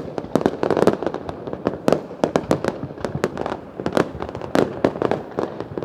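Fireworks going off in a dense, irregular run of sharp bangs and crackles, several a second, overlapping one another.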